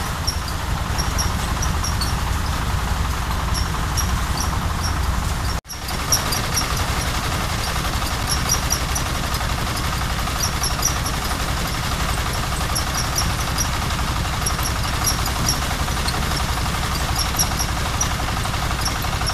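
Rice threshing machine running, driven by a small stationary diesel engine: a steady engine drone with the thresher's whir and light high ticking as rice stalks are fed in. The sound drops out for an instant about five and a half seconds in.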